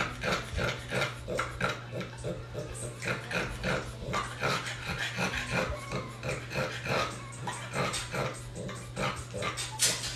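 A French Bulldog mother dog panting hard and fast, about three or four noisy breaths a second, in a steady rhythm.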